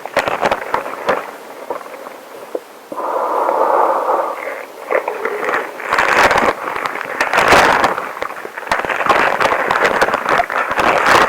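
Long rubber gloves rubbing, with a dense run of crackling and squeaking friction. About three seconds in, a smooth, steady hiss lasts a second and a half.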